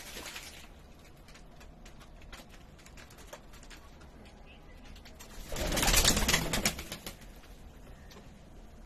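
Pigeons bathing in a tub of water: small splashes and wing flutters, with a short flurry at the start and a loud splashing flurry of wings lasting over a second, about six seconds in.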